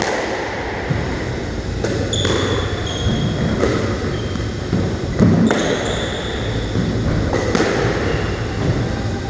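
Squash ball struck by rackets and hitting the walls of a squash court: sharp, echoing smacks every second or two, about six in all. Brief high squeaks of trainers on the wooden court floor follow several of the hits.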